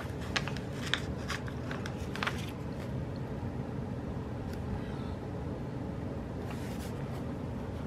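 A few light clicks and taps from handling small desk items over a steady low background hum.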